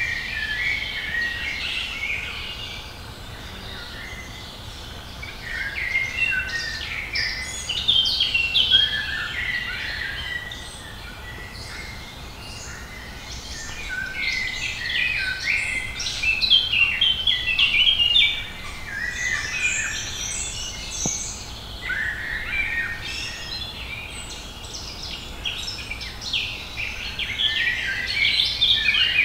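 Several songbirds singing at once in a woodland chorus, a dense run of short chirps and song phrases that swells and fades, over a low steady background rumble.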